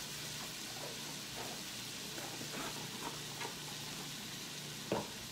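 Ground beef sizzling steadily as it browns in a hot skillet, with one short knock about five seconds in.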